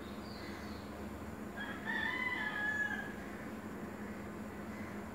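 A rooster crows once, a single drawn-out call starting about a second and a half in and lasting over a second, dropping in pitch as it ends. Small birds chirp faintly around it over a steady low hum.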